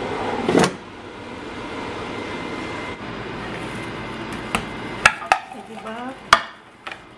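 Air fryer: a sharp click as the basket is pulled out, a steady fan-like hiss, then roasted potato chunks tipped from the basket onto a plate with several sharp knocks about five and six seconds in.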